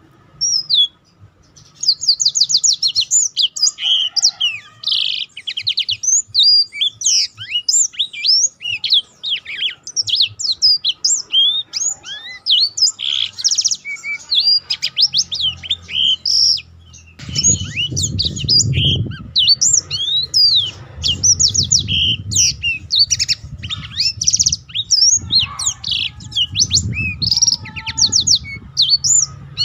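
Black-throated canary singing a long, almost unbroken rolling song of rapid high trills and quick sweeping notes. This is the tight continuous "ngeroll" style that keepers use as a tutor recording. A low rumble joins underneath about halfway through.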